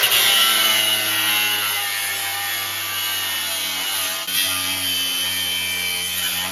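Milwaukee Fuel cordless angle grinder running steadily under load, its disc grinding and cutting into a steel K-frame engine-mount bracket, with a steady whine over the grinding.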